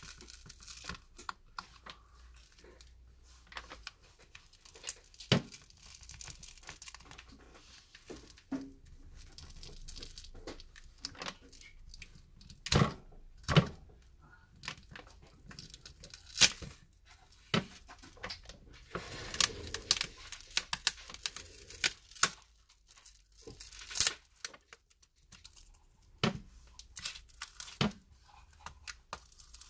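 A glued glass touchscreen digitizer being peeled and pried off a tablet's frame: adhesive tearing, with scattered sharp cracks and clicks of glass as it comes away.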